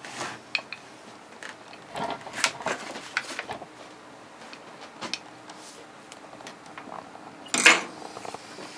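Scattered handling noises of electrical tape being wrapped around wire splices: small clicks and rustles, with a louder short rasp of tape pulling off the roll near the end.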